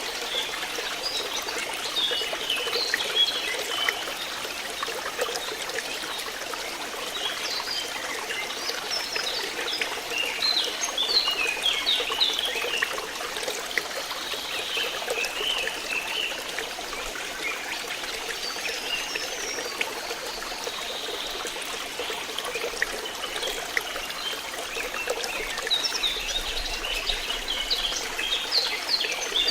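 Flowing water trickling and gurgling steadily, with many small bright splashes or bubbling sounds scattered through it.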